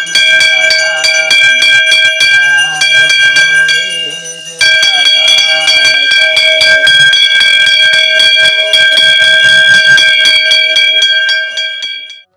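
Hanging temple bell rung over and over in quick strokes during aarti worship, its ringing tones sounding together without a break. It dies down about four seconds in, starts again abruptly, and stops shortly before the end.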